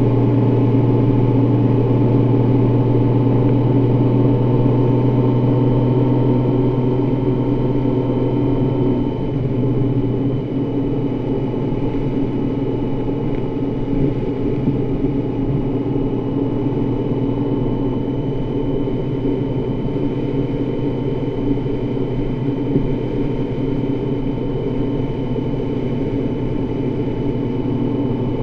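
Honda Gold Wing touring motorcycle engine running steadily at cruising speed, picked up by a camera mounted on the bike, with wind and road noise. Its pitch and loudness drop slightly about nine seconds in.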